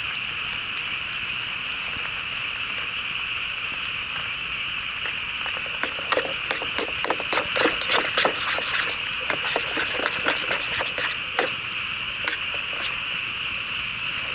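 Steady high-pitched chorus of frogs, with a run of sharp crackling and popping from about six to eleven seconds in.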